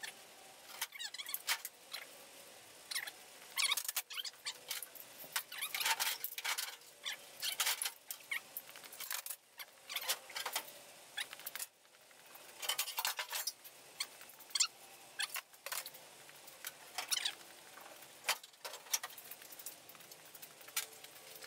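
Loose metal car parts being handled and moved about: irregular clinks, clanks and short scrapes of sheet metal and hardware, on and off throughout.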